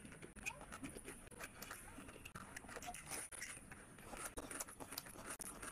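Close-miked eating sounds: wet chewing and smacking of a mouthful of rice and salad eaten by hand, with many quick, irregular mouth clicks and small crunches.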